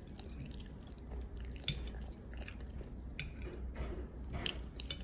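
Close-up chewing of food, with scattered short wet clicks and smacks from the mouth.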